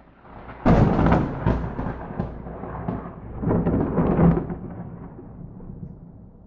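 A close thunderclap: a rumble builds, breaks into a sharp crack under a second in with several more cracks after it, swells again about three and a half seconds in, then rolls away into a fading low rumble. There is no rain.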